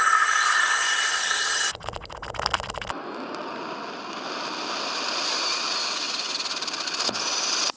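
Very hot material meeting liquid: a loud steam hiss with high whining tones that cuts off suddenly, a moment of crackling, then a steady hiss with fine crackling from about three seconds in.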